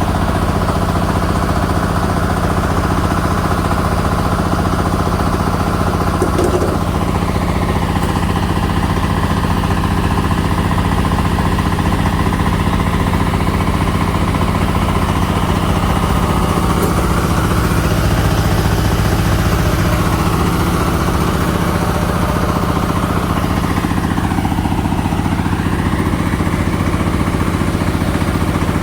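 An engine running steadily at a constant speed. A higher whine dips in pitch and comes back up near the end.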